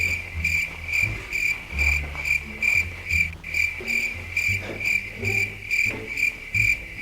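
Chirping-crickets sound effect: a high chirp pulsing evenly about two to three times a second, with low tones beneath.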